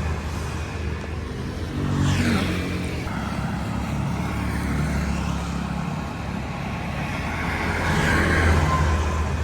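Road traffic: motor vehicle engines running and passing, with one vehicle going by about two seconds in.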